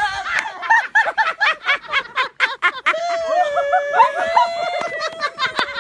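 Elderly women laughing hard: a quick run of short laughs, then a long drawn-out voiced note about three seconds in.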